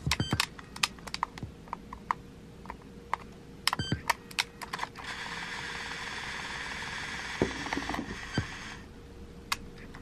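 Sony WM-EX621 Walkman cassette player's controls and mechanism clicking repeatedly as its buttons are pressed, with a steady whir from the mechanism starting about halfway through and lasting nearly four seconds.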